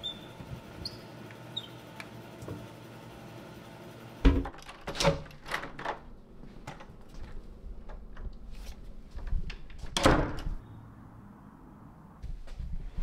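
A wooden door being opened: a heavy thud about four seconds in, then quick knocks and clicks from the latch and knob, and a second long, loud thud near ten seconds.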